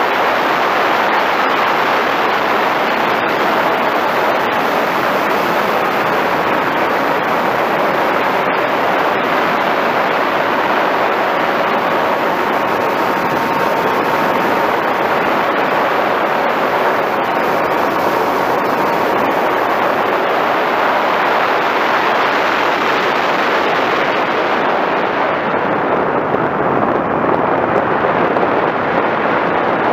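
Steady rush of airflow and the electric pusher motor and propeller of an FPV Raptor radio-controlled plane in flight, picked up by the onboard camera. A faint steady whine sits in the noise midway, and near the end the rush turns duller.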